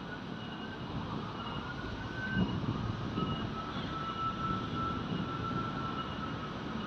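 Waterfall rushing with a steady roar of falling water. Over it runs a thin high whine that rises slightly, breaks off about two seconds in, then holds steady until near the end, with a fainter high note repeating about twice a second.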